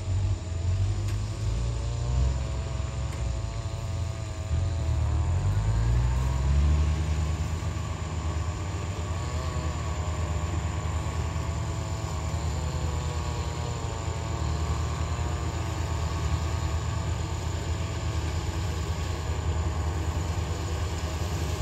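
Diesel engine of a rice combine harvester running, speeding up over a couple of seconds about five seconds in, then holding a steady pitch.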